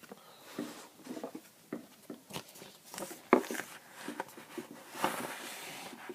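Light handling noises at a table: scattered small taps and clicks, one sharper click about three seconds in, and a brief rustle near the end.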